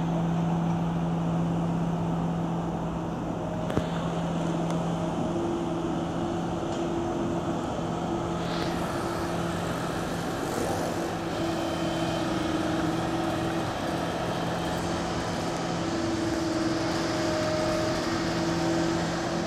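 Long-reach tracked excavator's diesel engine running with a steady low drone while the machine swings its boom. One sharp tick about four seconds in.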